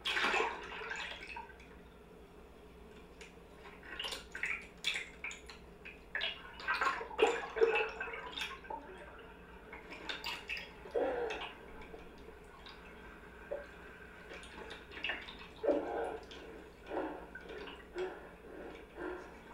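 Water dripping and sloshing in irregular drops, louder in a burst at the start and in a busier stretch near the middle, over a faint steady hum.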